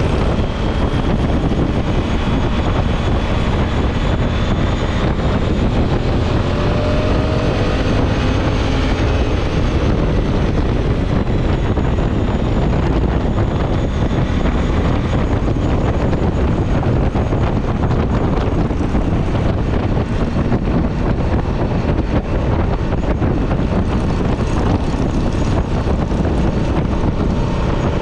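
Motorcycle at road speed: steady wind rush over the microphone mixed with engine and tyre noise, with a faint whine that rises in pitch about a quarter of the way in as the bike speeds up.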